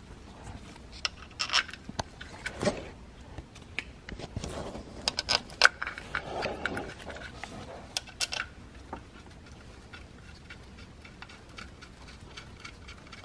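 Light metallic clicks and clinks of small bolts and washers being handled and threaded by hand into a BMW S54 VANOS housing, busiest in the first nine seconds or so and sparser after.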